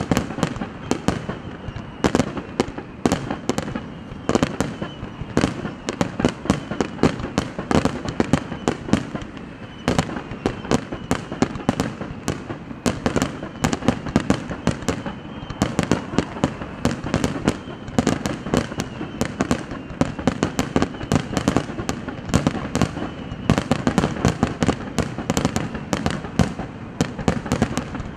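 Fireworks display: a dense, unbroken barrage of shell bursts, many sharp bangs a second over a continuous rumble.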